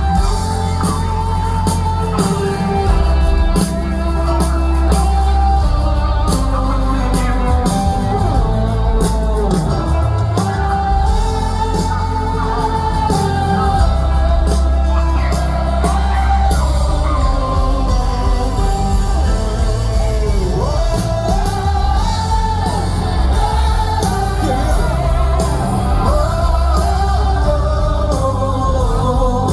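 Live gospel band music with a sung, wordless-sounding melody line over a heavy, steady bass, amplified in a large space.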